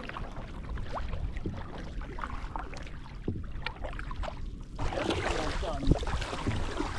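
Sea water splashing and lapping against an open canoe as it is paddled, with wind rumble on the microphone. The splashing gets brighter and busier about five seconds in.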